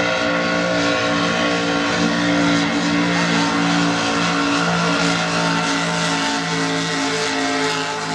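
Heavy inboard engines of two racing lobster boats running flat out, a steady drone with a slight wobble between two close pitches.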